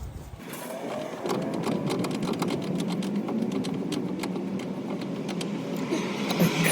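A tool loosening a fastener on a car's steering linkage, with a fast, steady mechanical rattle of rapid clicks.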